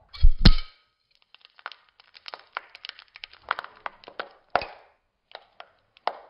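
A flashbulb firing in a Graflex three-cell flashgun, slowed down: a deep double pop in the first half-second, then a few seconds of irregular crackling and ticking from the hot, spent bulb.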